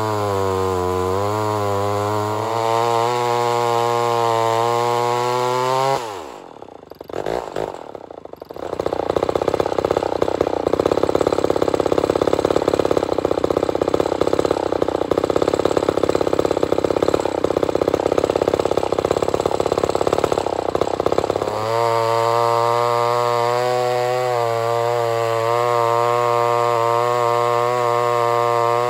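Vintage 68cc Lombard two-stroke chainsaw running hard while cutting through a log. About six seconds in, the engine note falls and the sound dips briefly. A loud, rough stretch follows before the steady engine note returns, wavering as the chain works through the wood.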